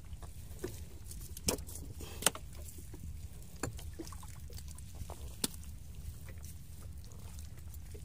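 Gillnet being hauled by hand into a small fishing boat: scattered sharp knocks and clicks from the net, its floats and the caught fish against the boat, over a steady low rumble.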